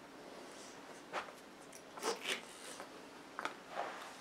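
Several faint, short rustling and crinkling sounds of small objects being handled on a tabletop, about five in all, spread through the few seconds.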